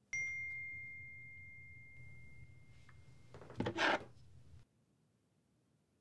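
A single bell-like ding, struck once and ringing on as one clear high tone that fades over about three seconds, followed near four seconds in by a short, loud rustling burst; the sound then cuts off abruptly.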